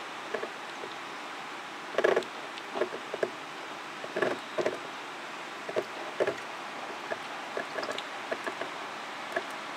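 Shallow tank water splashing and sloshing in short, irregular bursts as the intake pipe of a kerosene-pump siphon is worked along the bottom to suck up fish droppings, over a steady hiss.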